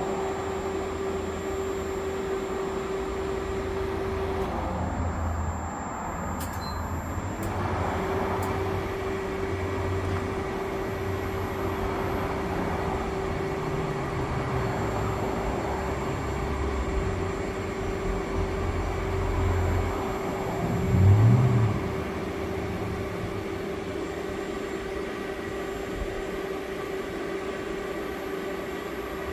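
Refrigerant recovery machine running steadily, pulling refrigerant out of the bus's rear A/C system, with a constant hum that dips briefly about five seconds in. A brief louder low rumble swells about 21 seconds in.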